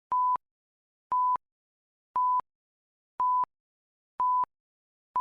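A steady electronic test tone at about 1 kHz, sounding in short identical beeps once a second, about six in all. This is typical of the countdown leader at the head of a TV commercial master.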